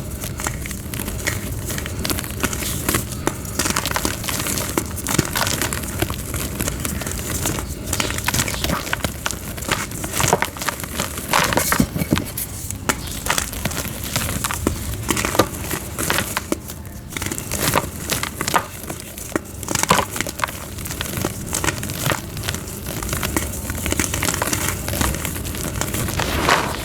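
Soft gym chalk being crushed and crumbled into powder, a continuous irregular crackling and crunching with frequent short sharp crunches.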